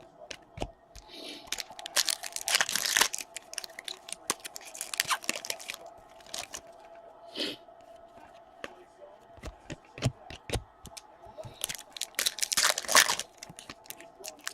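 Trading card packs being torn open and their wrappers crinkled, with cards handled and flicked, in several irregular bursts of tearing and crackling.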